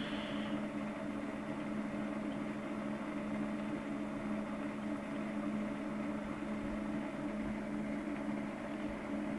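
Steady hum of bench electronic test equipment, holding two low tones over a faint hiss, without change.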